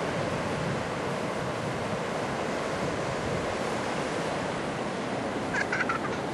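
Surf breaking on a sandy beach, a steady rushing noise, with wind rumbling on the microphone. A few short high calls come near the end.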